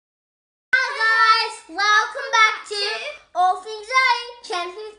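A child singing a short melody in a high voice with held notes, beginning less than a second in.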